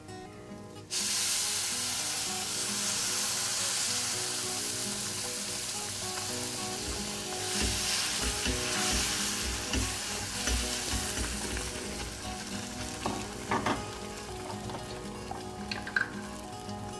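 Boiling water poured into a hot pan of fried semolina and grated beetroot, hitting with a sudden loud sizzle about a second in that keeps hissing and slowly dies down as the mixture is stirred. A few sharp knocks of the spoon against the pan come near the end.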